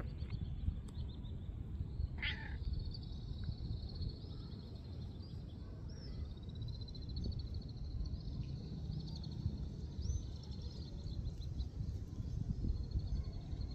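A tabby-and-white cat meows once, briefly, about two seconds in. Faint high chirping repeats in the background over a steady low rumble.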